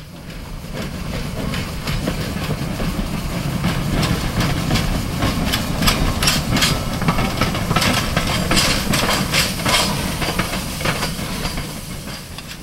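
Replica 4-4-0 steam locomotive running past close by: a steady rumble of the engine and wheels on the rails with steam hissing. It swells over the first couple of seconds, with a run of sharp clicks through the middle, and eases a little near the end.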